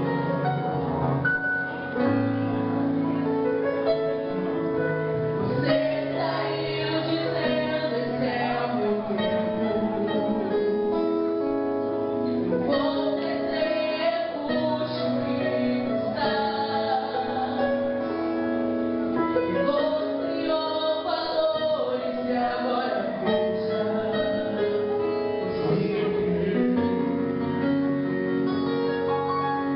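Gospel worship song performed by a band with singing, at a steady level throughout.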